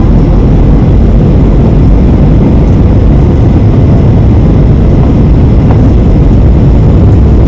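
Airliner cabin noise on approach to landing: the engines and the rushing air outside make a loud, steady, deep noise with no breaks.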